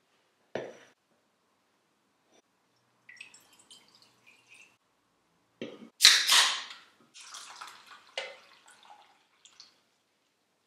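A glass bowl set down on a table with a knock, then an aluminium beer can cracked open about six seconds in with a sharp pop and hiss, the loudest sound. Beer then pours and splashes into the glass bowl.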